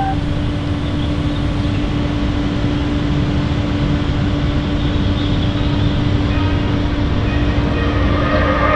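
Steady, loud background rumble and hiss with a constant low hum, like outdoor traffic noise.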